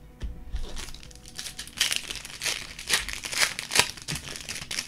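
Basketball trading card pack wrappers being torn open and handled, crinkling in a run of sharp, uneven rustles.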